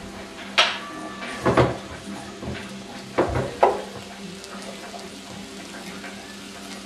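Four sharp knocks and clatters of kitchen handling over a faint steady hum, as the lid of a countertop electric contact grill is lifted open and raw chicken breasts are laid on its plates. The first knock has a brief ringing tone.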